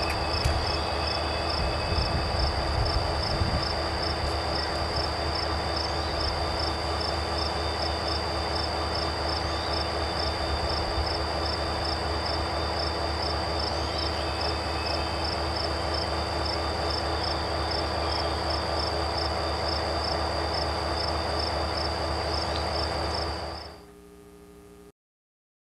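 CSX diesel road-switcher and yard slug rolling slowly past, with a steady low engine rumble, while crickets chirp in a high, even pulse about twice a second. The sound drops away and cuts off abruptly near the end.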